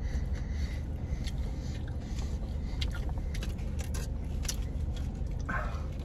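Aluminium foil burger wrapper crinkling and a person chewing, as irregular small crackles and clicks over a steady low rumble in a car's cabin.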